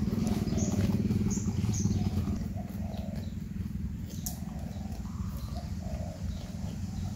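Porcupines chewing and gnawing on carrots and vegetables: a fast, continuous crunching and munching close by. Birds coo in the background.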